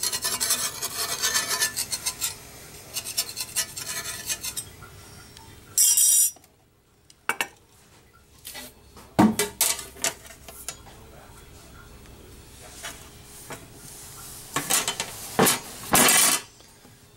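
A metal spatula scrapes around the edge of a cake in a cast iron skillet, quick repeated strokes for the first four seconds or so. After that come scattered clanks and clatters of metal on metal as a metal pan is laid over the skillet, loudest about six seconds in and near the end.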